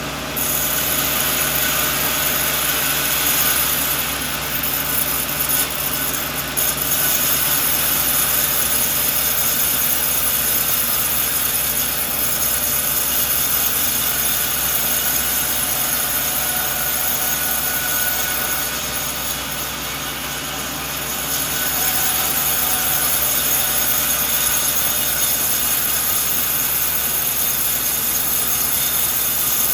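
Sawmill running and its blade cutting through a coconut log, a steady machine noise that eases twice and then picks up again.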